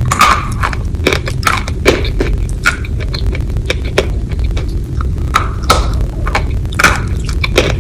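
Close-miked chewing of crunchy food: irregular crisp crunches and clicks, a few each second, over a steady low hum.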